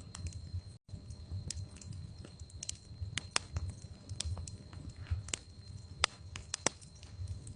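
Wood fire burning in a fireplace: logs crackling with irregular sharp pops over a low rumble of flame. The sound cuts out completely for an instant about a second in.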